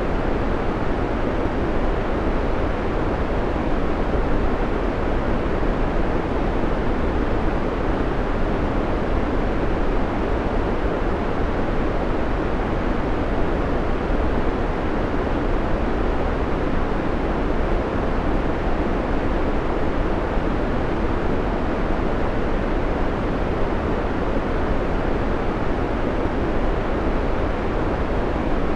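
Steady white-noise track: an even, unchanging hiss with no breaks, fuller and deeper than a bright hiss.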